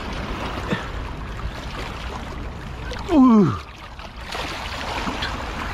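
Sea water washing and splashing against the rocks at the water's edge. About three seconds in, a person gives a short exclamation that slides down in pitch.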